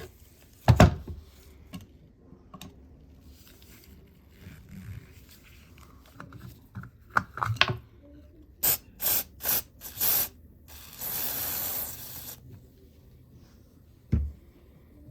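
Metal parts of an old drill being handled and worked: a sharp knock about a second in, scattered clicks and light mechanical rattling, then four short hissing bursts and a longer hiss, like a spray, about two-thirds of the way through, and a dull knock near the end.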